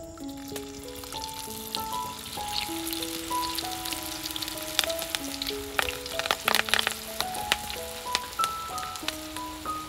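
Hot oil sizzling and crackling as food deep-fries, with the sharpest, loudest crackles bunched about two-thirds of the way through.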